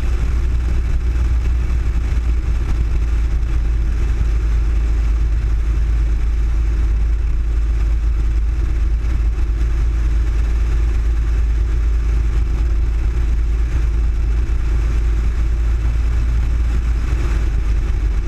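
Cessna 172's piston engine and propeller running steadily at low taxi power, heard from a camera mounted on the outside of the fuselage, as a loud, even, deep drone.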